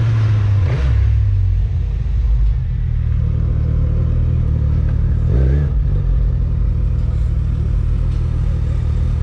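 Motorcycle engine running at low speed, heard from the rider's seat; the engine note rises and falls briefly about five and a half seconds in.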